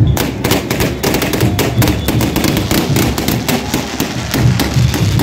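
Ground-set firework box going off, a rapid, irregular string of sharp cracks and bangs that starts just after the box is lit and keeps going without a break.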